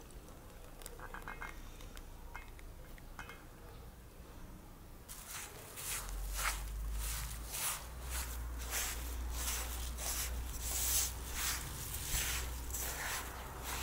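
Hands rubbing melted butter into flour in a metal bowl: a rhythmic scrunching and rubbing, about two strokes a second, starting about five seconds in. Before that only a few faint clinks.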